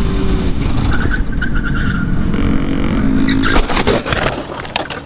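Sport motorcycle's engine running at road speed, then, about three and a half seconds in, a crash: several hard knocks followed by scraping and clattering as the bike goes down.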